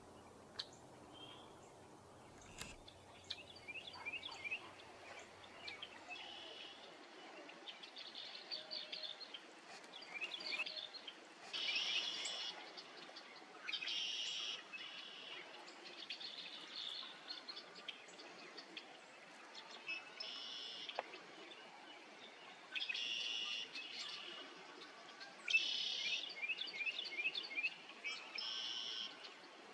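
Songbirds singing: short, bright phrases repeated every few seconds, some as quick trills, over a faint steady background hiss.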